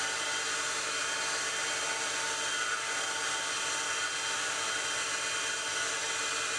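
Wood lathe running steadily while a folded paper towel buffs Renaissance Wax onto the spinning pen blank, a steady even hum and hiss.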